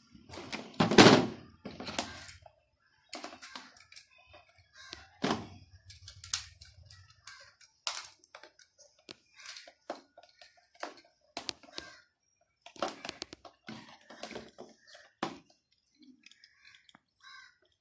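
Hand tools and plastic electrical parts being handled during wiring: a loud clack about a second in, then scattered small clicks and knocks as a wire stripper and a screwdriver work on wires and the terminals of a timer and a contactor.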